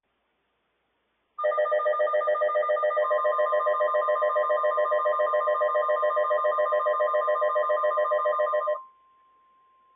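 Weather radio alert alarm for a flash flood warning: a loud electronic tone pulsing rapidly, about six beeps a second, for about seven seconds, then cutting off. Under it, from about three seconds in, the steady single-pitch NOAA Weather Radio 1050 Hz warning tone comes in and carries on faintly after the pulsing stops.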